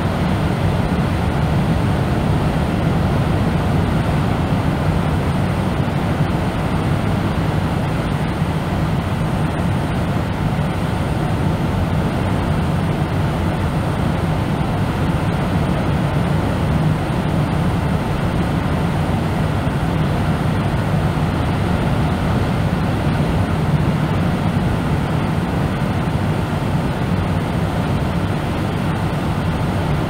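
Steady, deep brown noise of a beach recorded from indoors, a low rumble strongest in the bass with no distinct wave surges or other events.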